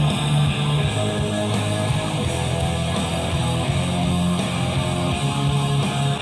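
Rock song with guitars and a strong bass line playing through a home hi-fi system, a DAC, tube preamp and two-channel power amp driving bookshelf speakers, heard in the room.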